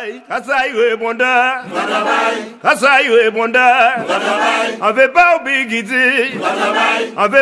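Music: male voices singing a chant with strong vibrato.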